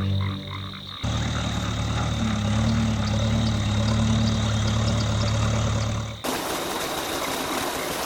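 Tractor engine idling with a steady low hum, starting abruptly about a second in and cutting off suddenly about six seconds in, after which a steady hiss takes over.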